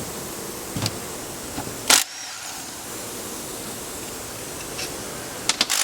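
A few sharp clicks and light knocks over a steady hiss: tools and transmission parts being handled during a teardown. The loudest click comes about two seconds in, and several more come close together near the end.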